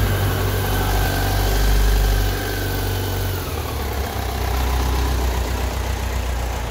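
BMW K100 RS's inline-four engine idling on choke just after starting, with the exhaust header freshly welded; the idle note steps down a little about two and a half seconds in. The owner judges it to sound right, with no odd noise.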